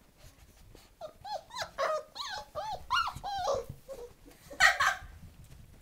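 German Shepherd puppies whining and yipping in a quick run of short, high, rising-and-falling calls while they play-fight, then one louder, rougher puppy cry near the end.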